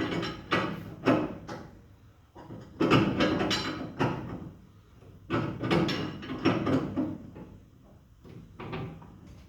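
A spring compressor being worked to let down a car's compressed coil spring: a series of short scraping, clunking strokes coming in three or four quick groups with brief pauses between.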